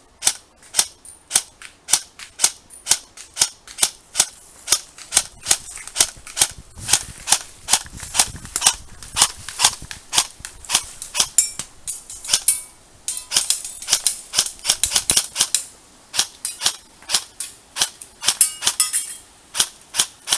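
E&L AKM airsoft electric rifle firing semi-automatic: a long string of sharp, loud shots, about two to three a second, with quicker runs of rapid trigger pulls in the middle and near the end.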